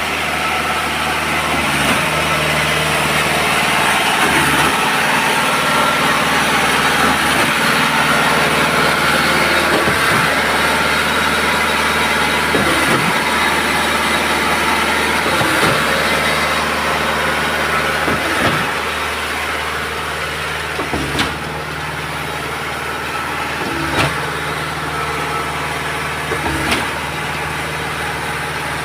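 Engine of a hydraulic concrete machine running steadily. A clunk sounds roughly every two and a half to three seconds, over a steady hiss.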